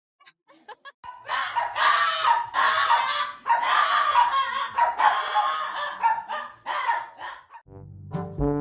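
A dog barking over and over in a long string of harsh barks, starting about a second in. Brass music starts near the end.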